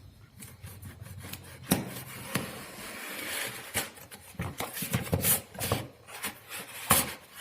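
Packaging of a new speaker box being handled and opened: irregular rubbing and scraping with many scattered clicks and knocks.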